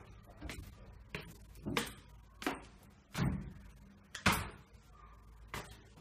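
Footsteps going down stone stairs, about one step every two-thirds of a second, with one heavier step a little past the middle.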